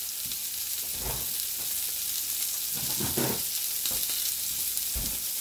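Spiced chicken pieces sizzling steadily in hot rice bran oil in a frying pan on medium-high heat, with a few faint knocks in the background.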